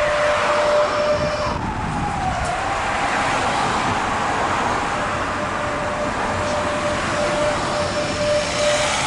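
Zürich tram running through a curve, heard from an open window: rolling rail noise with steady high-pitched whining tones, one of which slides down in pitch about two seconds in and then holds.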